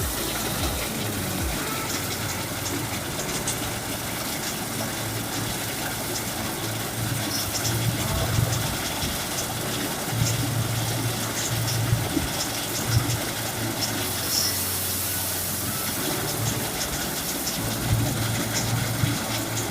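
Rice thresher with a built-in blower running steadily: a constant mechanical whir with a low hum and scattered small ticks.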